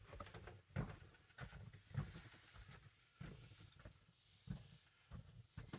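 Near silence with faint, scattered handling sounds: soft taps and brief rustles of a snapback cap being handled.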